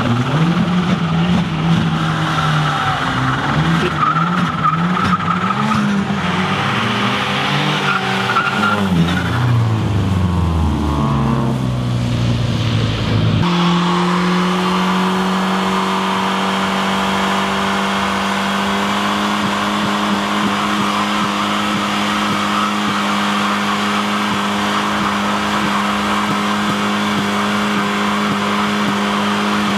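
Car engine revved hard, its pitch swinging up and down again and again with tyre squeal, typical of a burnout. About halfway through it changes suddenly to a steady high-rev drone held at one pitch.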